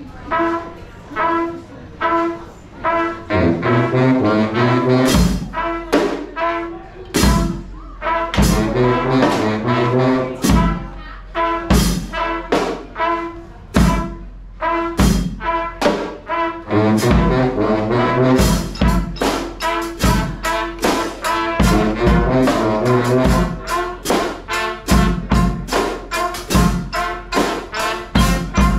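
Live brass band playing: trumpets, trombones and saxophone over bass drum and snare drums. It opens with short repeated brass notes, low brass joins after about three seconds, drum hits come in about five seconds in, and the drumming grows busier in the second half.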